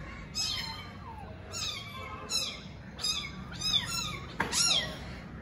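Kittens mewing over and over: short, high-pitched calls, each falling in pitch, about one or two a second.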